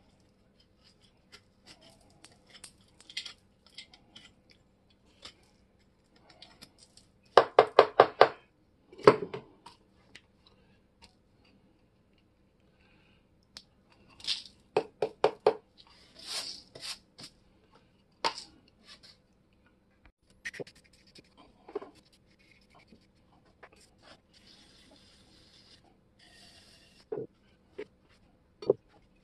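Metal parts of old grass shears being handled and knocked on a work surface: two short runs of quick knocks, about six a second, with scattered clicks, scrapes and rubbing between.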